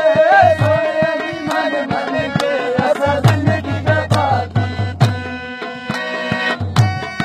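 Live folk music: a singer's wavering voice over a harmonium, with a hand drum beating low strokes. The voice drops out about halfway through, leaving the harmonium's held chords and the drum.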